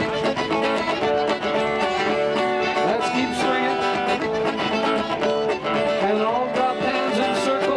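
Live string band with guitar and plucked strings playing a square-dance tune.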